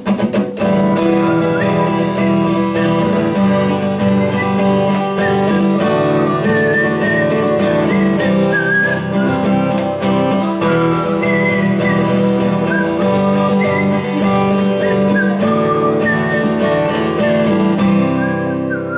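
Steel-string acoustic guitar strummed in a fast, steady, driving rhythm, playing a song's instrumental intro. Near the end the strumming stops and a chord is left ringing.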